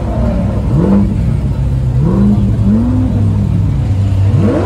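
A car engine idling and being revved in repeated blips, its pitch rising and falling about four times.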